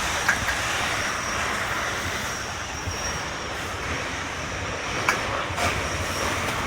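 Typhoon wind blowing steadily in a continuous rushing roar, minutes before a peak gust of 81 m/s. A few sharp knocks cut through it: one near the start, and two about five seconds in.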